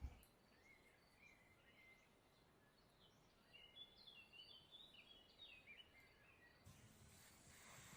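Near silence with faint bird chirps in the background, a quick run of short high chirps in the middle; a faint hiss comes in near the end.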